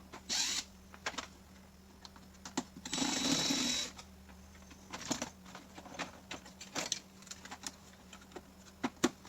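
Scattered clicks and knocks of tools and plastic dash parts being worked on inside a car cabin. There are two short buzzing bursts, the longer one about a second long, about three seconds in.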